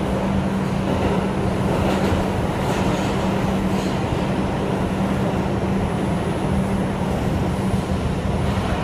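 R142 subway car running between stations, heard from inside the car: a steady rumble of wheels on rail with a constant low hum.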